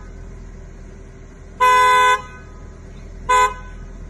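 Car horn honking: one blast of about half a second some one and a half seconds in, then a short toot about a second and a half later.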